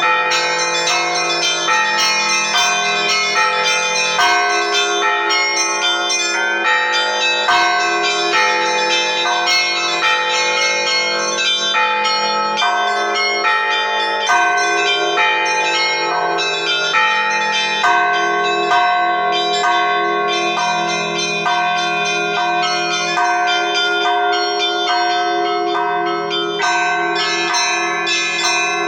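Russian Orthodox church bells rung together in a continuous peal: smaller bells strike in quick repeating patterns over the steady deep hum of larger bells. This is the ringing that calls to the late Liturgy.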